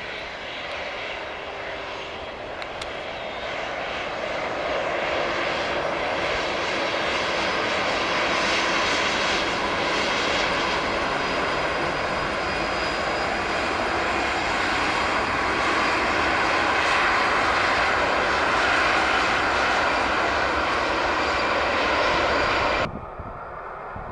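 Jet engines of an Air Canada Rouge Airbus A320-family airliner running at taxi power as it rolls past, growing louder as it comes near. The sound cuts off suddenly about a second before the end.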